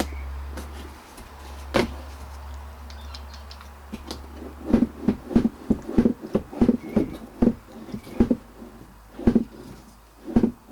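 Hollow plastic knocks and clunks of a truck's HVAC heater box being handled, with a single sharp click near the start and then a quick, irregular run of knocks from about halfway in. A low hum lies under the first half and fades out.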